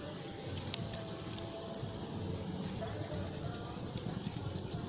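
Insects trilling in a fast, pulsing high buzz that grows louder about three seconds in.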